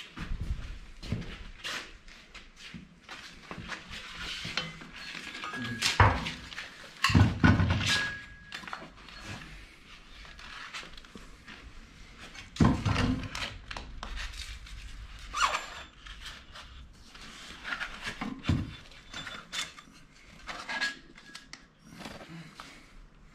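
Parts of a belt grinder being handled and fitted: irregular knocks and clunks with light metallic clinks and brief rings, the heaviest knocks about six, seven and twelve seconds in.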